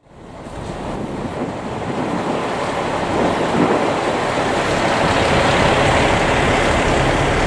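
Steady wash of noise from fire apparatus engines running at a fire scene, mixed with wind on the microphone, fading in from silence after a cut.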